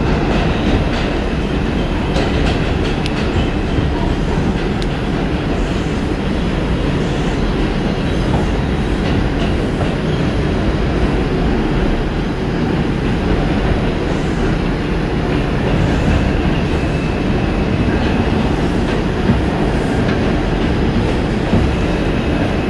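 R142 subway train running at speed through the tunnel, heard from inside the car: a steady rumble of wheels on rail.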